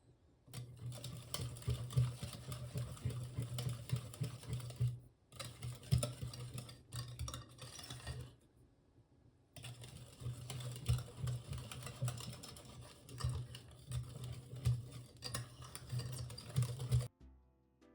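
A utensil beating cake mixture in a mixing bowl: quick, rhythmic tapping strokes against the bowl. It pauses briefly about five seconds in, for about a second around nine seconds in, and again just before the end.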